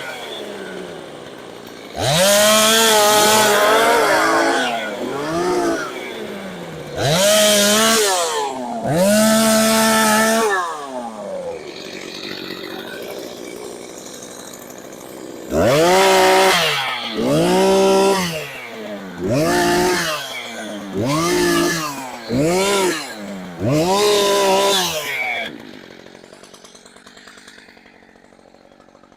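Two-stroke chainsaw revved hard in about ten short bursts, falling back to idle between them, then shut off about 25 seconds in.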